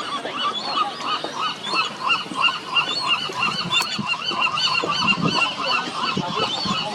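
A large western gull colony calling: many short, arched calls overlapping into a continuous din.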